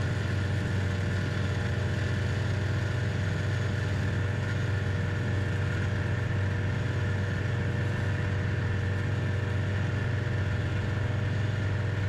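Snowmobile engine running at a steady speed: a constant low drone whose pitch and loudness do not change.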